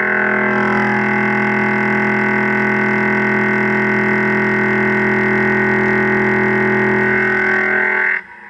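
Indexable carbide-insert weld preparation mill chamfering a block of 4140 pre-hard steel, the cut giving a loud, steady buzzing whine with several pitches at once. It drops away briefly near the end.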